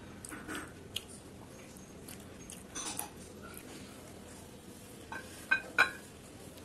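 Light taps and crackles of crisp fuchka (panipuri) shells handled by hand over a plate and glass bowl, with two sharper clicks near the end.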